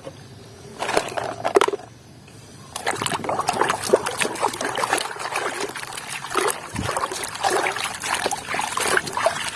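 Water sloshing and trickling with many small irregular splashes as a plastic toy is washed by hand. It is sparse for the first couple of seconds, then runs on busily from about three seconds in.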